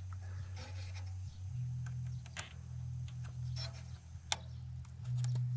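Small plastic clicks and scrapes as a flat-blade screwdriver prises the locking tabs on the ignition coil connectors of a Ford Focus 1.0 EcoBoost engine to free the wiring plugs. The sharpest click comes a little past four seconds in, over a steady low hum.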